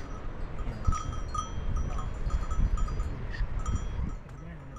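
Bells on grazing sheep and goats clinking irregularly, in short metallic rings, over a low rumble.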